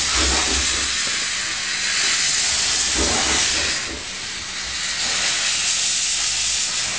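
Small steam locomotive hissing loudly as it moves slowly, steam blowing out low around its cylinders, with a low rumble underneath. The hiss eases briefly about four seconds in, then picks up again.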